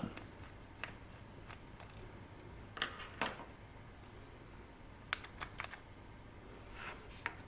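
Scattered light clicks and brief scrapes of small parts being handled: the IR LED ring board being lifted out of a dome CCTV camera's metal housing.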